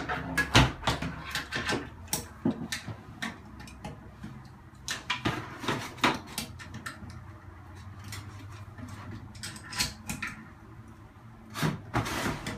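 Pliers working loose the bolt under a toilet tank that holds the fill valve: irregular clicks, knocks and scrapes of metal on the fitting, coming in clusters.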